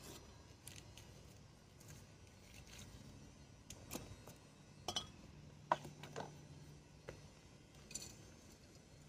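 Scattered light clicks and taps of flowerpots, soil and small gardening tools being handled while succulents are repotted, the sharpest about five to six seconds in and another near the end.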